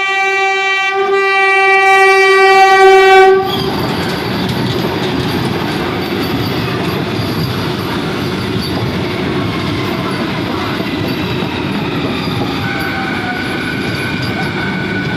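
A Vande Bharat Express train's horn sounds one long blast, briefly dipping about a second in and growing louder until it cuts off after about three and a half seconds. The train's steady rumble and wheel-on-rail noise follow, with a faint high whine coming in near the end.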